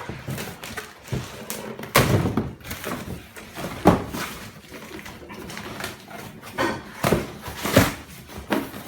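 A string of irregular knocks and thuds in a small room, with the sharpest hits about two, four and seven seconds in.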